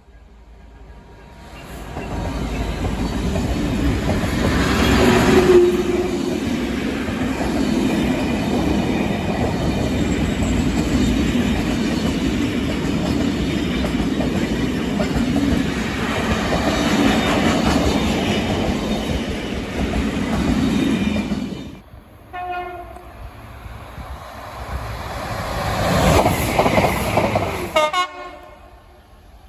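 Train horn blasts as a train passes close by, with the loud rumble and clatter of the wheels on the rails lasting about twenty seconds. After a brief lull, another loud pass swells and cuts off a second or so before the end.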